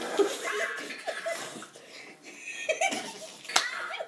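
Two boys laughing in short bursts and giggles, with a sharp click about three and a half seconds in.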